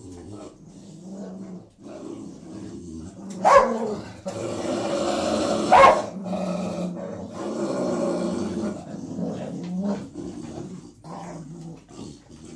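Two beagles growling over their food, a low rumbling growl that runs on with rougher, louder stretches. Two sharp barks break out about three and a half and six seconds in.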